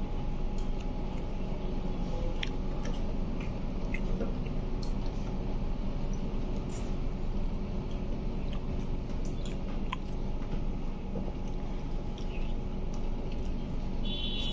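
Steady low hum of the restaurant room, with a couple of faint steady tones in it, broken by scattered small clicks and taps from eating at the table.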